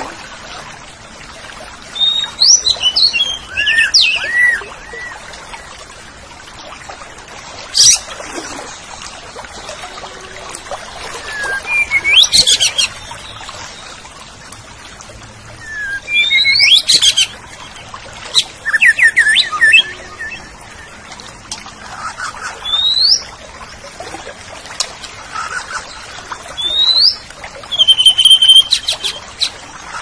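Cucak ijo (green leafbird) singing: about eight short phrases of varied whistles, chirps and quick rising notes, each separated by a pause of a second or two.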